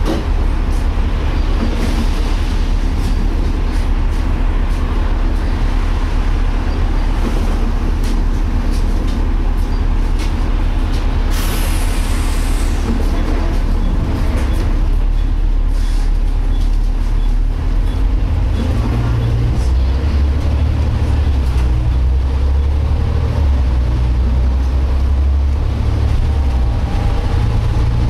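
Inside a moving Volvo B7TL double-decker bus: the engine and driveline drone steadily, with the odd differential noise the rider noticed, and a short hiss of air about eleven seconds in. The low rumble grows heavier about two-thirds of the way through.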